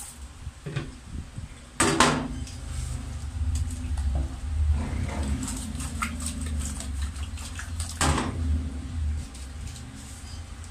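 A plastic basin of whole fish being handled and tossed by hand at a stainless steel sink: knocks and clatter of the basin and fish, two louder knocks about 2 and 8 seconds in, over a steady low rumble.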